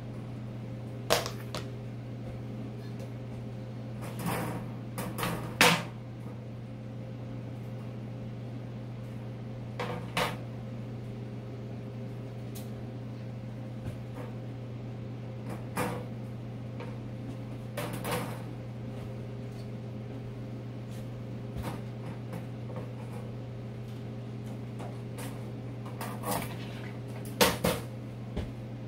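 Metal mesh food-dehydrator racks clattering and knocking now and then as they are handled and stacked on a wooden counter, the loudest knocks a little over five seconds in and near the end. A steady low hum runs underneath.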